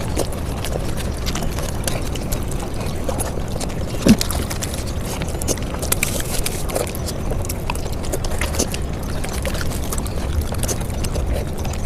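Eating sounds sped up to five times normal speed: a dense, rapid run of chewing and mouth clicks, with one louder thump about four seconds in.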